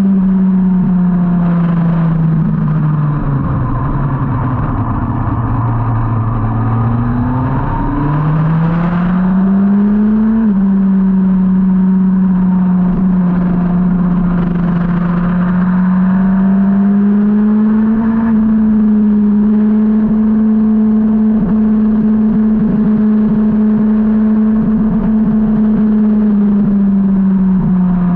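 A 2003 Yamaha R1's engine heard onboard on track. The revs fall as the bike slows for a corner, climb again about eight seconds in, and drop suddenly near ten seconds at a gear change. The engine then holds a fairly steady note, rising gently, through a long bend.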